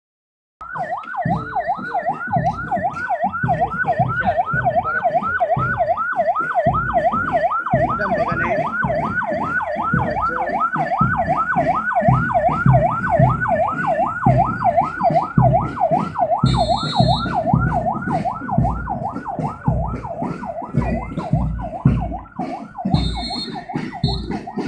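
Police vehicle siren in fast yelp mode, sweeping up and down about three times a second without a break. Under it runs a steady beat of thumps, and two short high whistle-like tones come about two thirds of the way through and again near the end.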